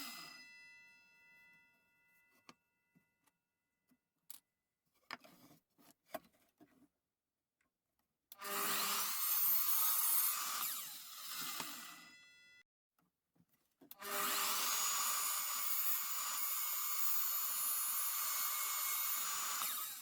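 Electric power saw cutting lengths of wood. A run starts about eight seconds in and winds down. A longer run starts near the end, its motor whine rising and then holding steady. Light knocks from handling the wood come before the cuts.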